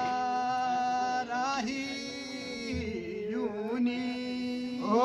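Music of long held, wavering notes over a steady low droning note, with no drumming.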